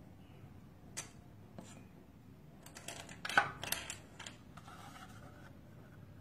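Hard plastic toy bricks and parts clicking and knocking together as they are handled: a single sharp click about a second in, then a quick cluster of clicks and rattles, the loudest about halfway.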